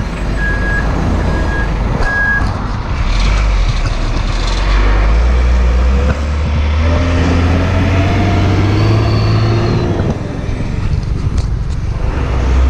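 Heavy truck engine running and pulling away, its note rising for several seconds as it gathers speed and dropping about ten seconds in. A high electronic beep repeats about twice a second for the first couple of seconds.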